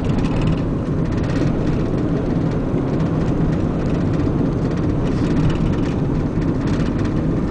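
Steady engine and road noise of a moving vehicle, heard from inside it.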